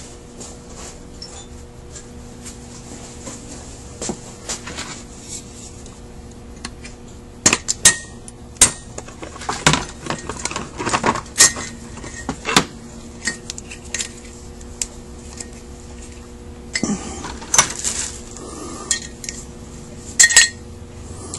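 Metal parts of a Carter WA-1 carburetor clinking and knocking as they are handled and set down while the float and float pan are taken out. It is a run of sharp clicks with a short ring, sparse at first and coming thick and fast from about a third of the way in, over a steady low hum.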